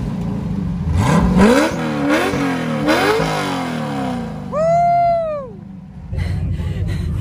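A 4400-class Ultra4 race car's engine being revved in a quick series of throttle blips, then settling to a steadier low running. Around the middle a brief high tone rises and falls once.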